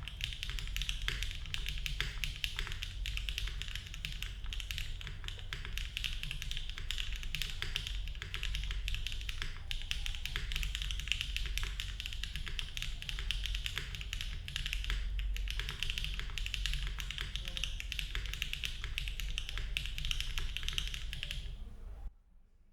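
Fast, continuous typing on a QK65v2 mechanical keyboard with HMX Sunset Gleam linear switches in a polycarbonate plate, no case foam, and GMK Dandy keycaps: a dense, even clatter of key strikes that stops suddenly near the end.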